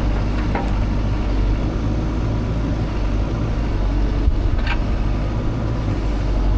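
Engine of a tracked excavator running steadily as it is driven back, bucket down to take weight off the tracks.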